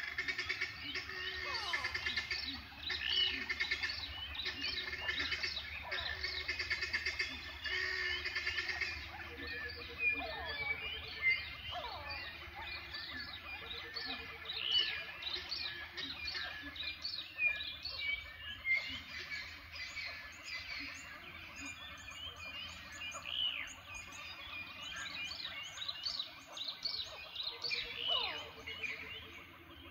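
Many birds chirping and calling together in a dense chorus, with occasional sweeping whistles and a low pulsed trill that comes back every few seconds.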